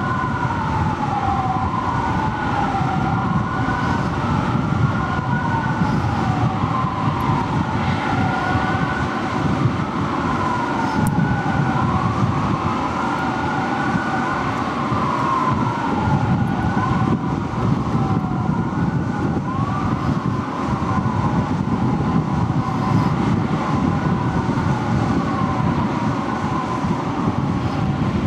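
Sirens of a fire engine and a ladder truck wailing, several overlapping sweeps rising and falling in pitch, over a steady low rumble of engines and traffic.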